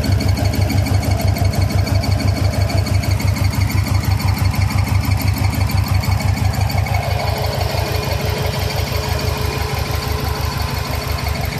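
Subaru WRX-swapped flat-four engine idling with a rapid, even pulsing tick. The owner is chasing an intermittent noise that seems to come from under the top-mount intercooler. It eases slightly in level about two-thirds of the way through.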